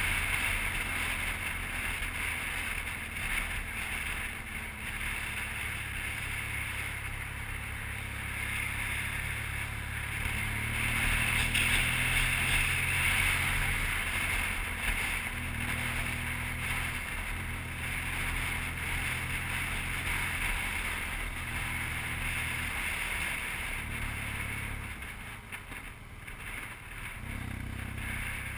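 BMW R1200GS flat-twin engine running under way, its note stepping up and down several times as the throttle and speed change. A steady rush of wind noise runs under it.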